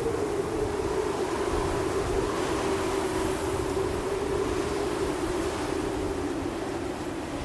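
Howling wind sound effect: a steady hollow howl whose pitch drifts slowly, over a low rumble.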